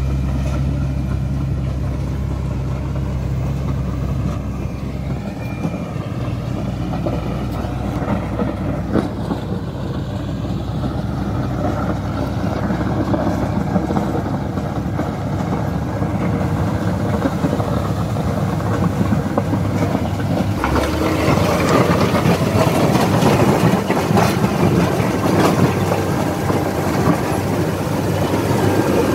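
Caterpillar 120K motor grader's diesel engine running steadily and growing nearer. About two-thirds of the way through, a rougher scraping joins it as the grader's blade cuts and pushes gravel along the dirt road, loudest near the end.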